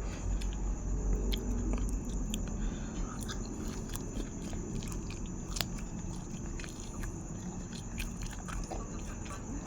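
A person chewing and biting food, with scattered small crunches and wet clicks: eating spicy grilled pork salad (nam tok moo) with sticky rice.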